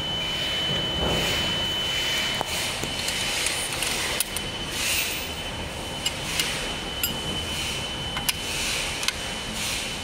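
Open-end wrench clinking against the front axle nut of a small scooter wheel as the nut is worked loose: a handful of sharp metal clicks scattered over steady background noise.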